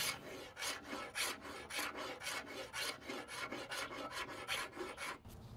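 Hand scraper pulled in quick, repeated strokes across the side of a walnut-veneer cabinet, about four scrapes a second, stripping off the old finish down to bare wood. The scraping stops near the end.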